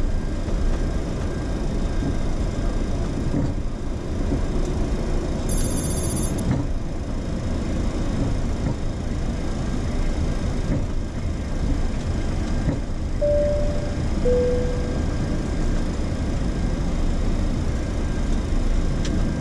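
Steady low rumble on the flight deck of a taxiing Boeing 737-800, from its CFM56 engines and the rolling airframe. A brief high-pitched electronic tone sounds about six seconds in, and a short two-note falling chime comes around thirteen to fourteen seconds in.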